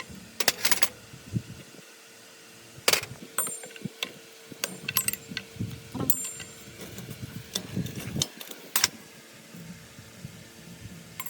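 Intermittent clinks and knocks of metal parts and tools being handled, some with a brief metallic ring, over a faint steady hum.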